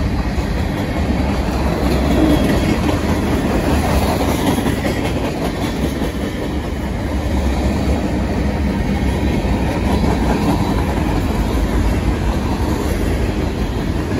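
Freight train of covered hopper cars and tank cars rolling past close by, its steel wheels running steadily on the rails.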